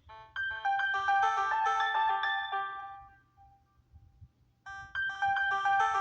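Stock ringtone of an Alcatel Onetouch The Big Easy Flip phone playing through its speaker: a short melody of quick notes that lasts about three seconds, stops, and starts again after a pause of about a second and a half.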